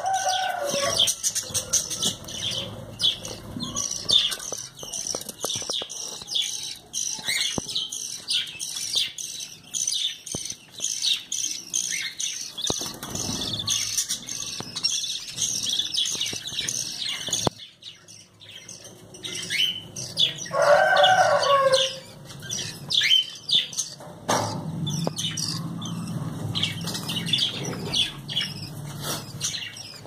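Caged lovebirds chattering: a dense, continuous stream of rapid high-pitched chirps, with scattered clicks and one louder, lower squawking call about twenty-one seconds in.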